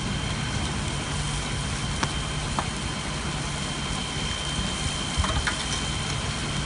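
Truck cab on fire, burning with a steady rushing noise and a few sharp crackles and pops, over a low steady drone and a thin steady high whine.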